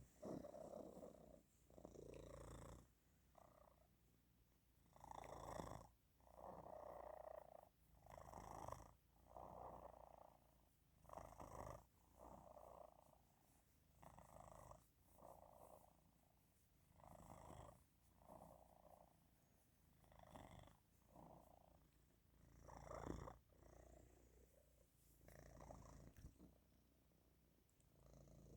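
Tomcat purring with a snoring quality, a 'snore-purr'. The faint purr swells and fades in a regular rhythm, rising with each breath in and out every second or two.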